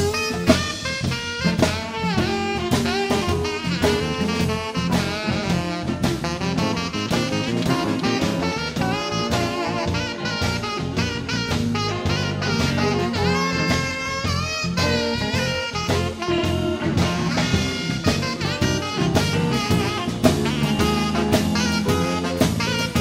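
Live blues band with a saxophone soloing, its line bending and running over a steady drum-kit beat.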